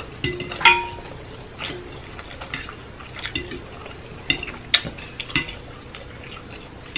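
Metal fork clinking and scraping against a glass baking dish while twirling noodles, with about seven sharp clinks that ring briefly.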